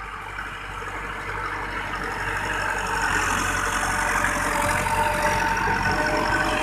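Massey Ferguson 385 tractor's diesel engine running steadily as it pulls a rotavator through a flooded field, with water and mud churning. It grows louder over the first few seconds as it comes closer.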